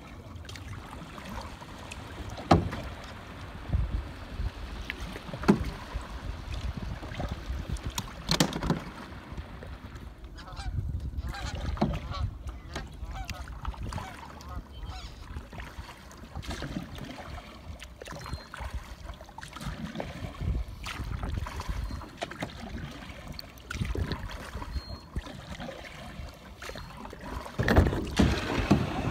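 Kayak being paddled: a paddle stroke knocks and splashes about every three seconds. Near the end the plastic hull grinds up onto a gravel shore.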